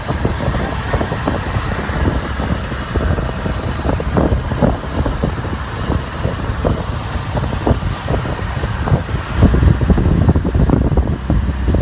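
Steady low rumble of a moving vehicle, with gusty wind noise on the microphone that grows louder about ten seconds in.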